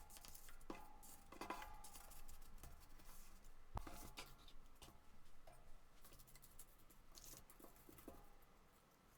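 Quiet handling of paper at a craft desk: soft rustles with a few sharp taps, the loudest about four seconds in.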